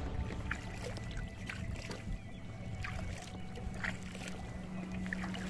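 Small waves lapping and slapping against a kayak's hull, with scattered light splashes. A steady low hum joins about halfway through.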